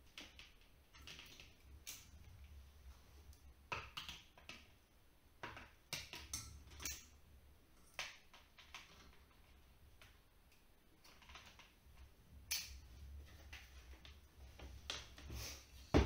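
Faint, irregular clicks and rustles of hands working electrical wires with a hand tool during fire alarm wiring work.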